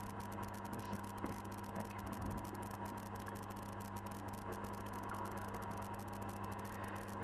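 Steady low electrical hum and faint room noise in a hall, with no speech.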